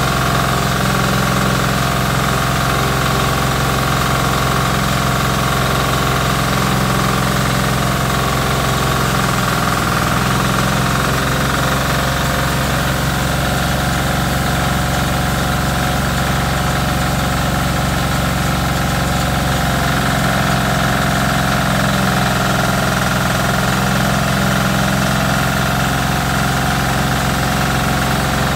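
Small engine running steadily under load, driving a rice-milling machine that is milling paddy, with the mill's mechanical hum and rattle over the engine note. The engine's pitch sags briefly about ten seconds in, then recovers.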